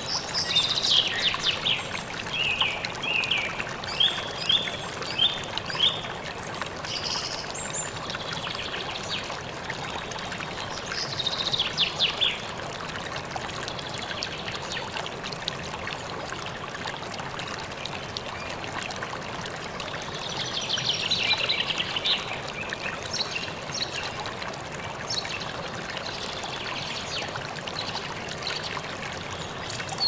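Mountain waterfall falling from a height and splashing into its pool, a steady rushing of water. Over it, birds call in several short bursts of quick repeated chirps and trills.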